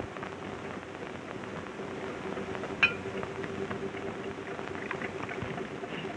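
Hiss and a steady hum from an old film soundtrack, with one light, ringing clink about three seconds in: a ceramic sake flask touching a cup as sake is poured.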